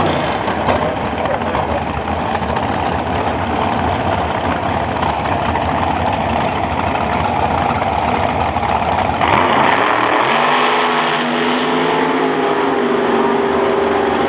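A dragster's big V8 engine running at a loud, rough idle. About nine seconds in, its pitch sweeps up sharply and then holds at a steadier, higher note.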